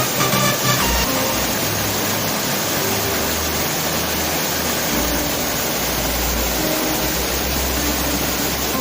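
Waterfall: a steady rush of falling water. Background music fades out in the first second.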